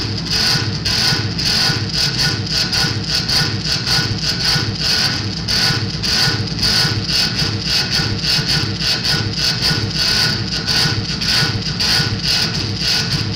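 Loud harsh electronic noise music: a dense wall of hiss and rumble that throbs at about three pulses a second.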